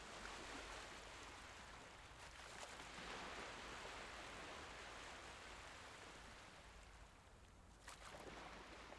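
Faint small waves of the Mediterranean Sea washing in and drawing back: one soft wash swells a few seconds in and ebbs away, then a fresh wave breaks sharply near the end.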